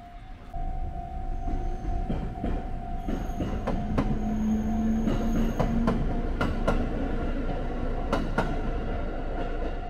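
Electric train passing over a level crossing, its wheels clacking over the rail joints in a run of sharp clicks, with the crossing's warning signal sounding a steady tone throughout.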